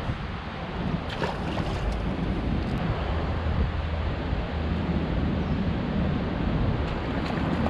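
Steady rush of river water with wind buffeting the microphone and a low rumble, and a brief crackle about a second in.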